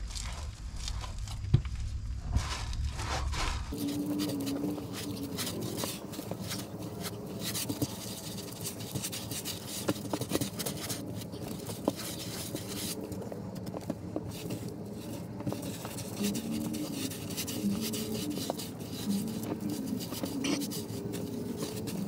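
Stiff broom bristles scrubbing thick fibered foundation coating onto a concrete block wall, in repeated scraping strokes; the coating is extremely hard to spread. A low rumble underneath stops about four seconds in.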